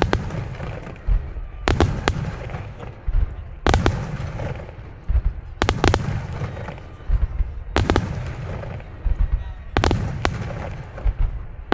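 Starmine fireworks barrage: loud shell bursts bang about every two seconds, with a steady low rumble and crackling in between.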